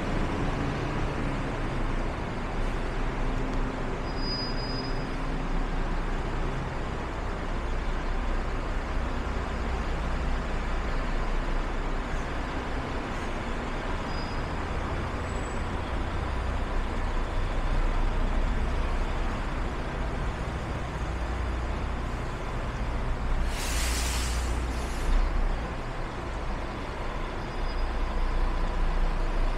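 City street traffic on a wet night: buses and cars running and passing, a steady low engine rumble under a constant hiss. One short, sharp hiss cuts in late on, typical of a bus's air brakes releasing.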